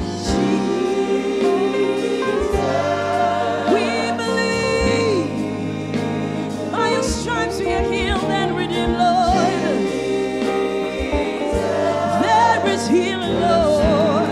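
Gospel worship music: voices singing a slow, ornamented melody over steady, sustained chords.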